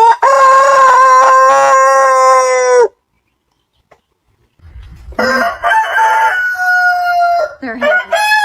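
Roosters crowing: one long crow held level for nearly three seconds, then after a silent gap two more crows, the last still going at the end.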